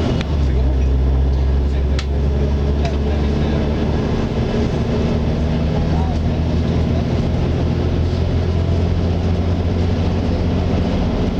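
Mercedes-Benz O-500RS coach's rear-mounted inline-six diesel engine running with a deep, steady drone. Its note shifts at the very start and then holds, with a few faint clicks in the first three seconds.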